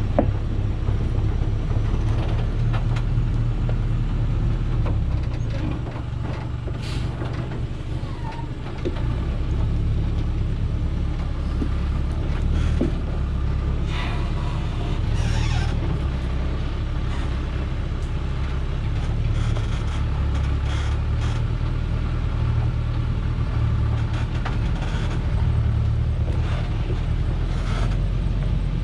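Diesel engine of a Dongfeng truck loaded with acacia logs running at low speed under load over a rough dirt track, a steady rumble that eases briefly about a quarter of the way in. A few short clatters or hisses break through now and then.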